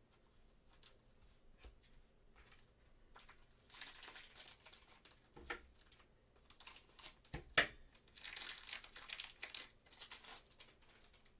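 Trading-card pack wrapper being torn open and crinkled by gloved hands, in several bursts of rustling about four seconds in and again from about six and a half to nine and a half seconds, with one sharp click at about seven and a half seconds.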